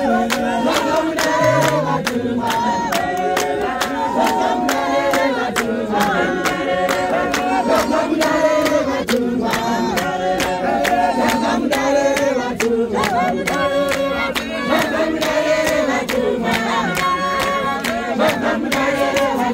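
A large congregation singing a church song together in chorus, many voices, with steady rhythmic hand-clapping.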